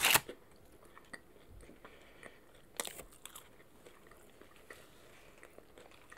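Close-miked eating: a loud bite or crunch right at the start and another about three seconds in, with soft chewing and mouth clicks between.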